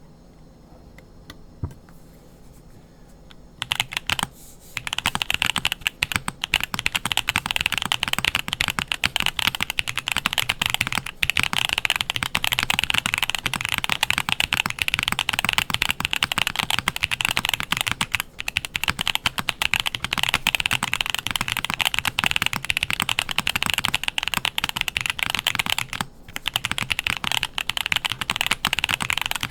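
Typing on an MM Studio Class80 R2 mechanical keyboard with its buzzer and solenoid off, so only the switches are heard: fast, continuous keystrokes of Wuque tactile switches on a polycarbonate plate in a CNC-milled aluminium case. The typing starts about four seconds in, after a few quiet seconds.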